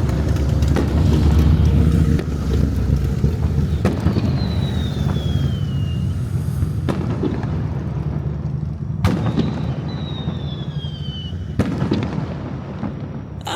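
Aerial fireworks display: shells bursting with booms and crackling over a continuous low rumble, two sharp loud bangs in the second half, and twice a high whistle that slides down in pitch.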